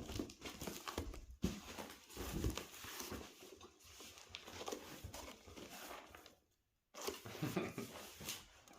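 Rustling, crinkling and light knocks of a taped cardboard package being opened and its contents handled.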